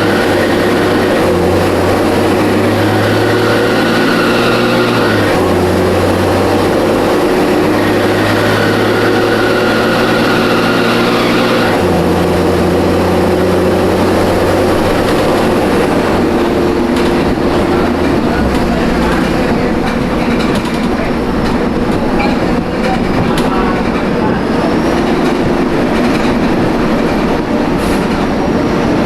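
Mercedes-Benz O500M city bus's diesel engine running under way through its ZF Ecomat automatic gearbox, its note stepping to a new steady pitch several times. A high whistling tone comes and goes during the first dozen seconds. The bus has a holed exhaust and a slipping belt.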